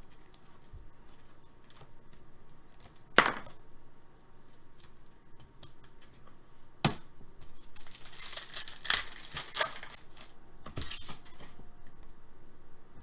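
Hockey card packs and cards being handled: two sharp clicks, then crinkling and tearing of a pack wrapper about eight seconds in, with more crinkling a little later.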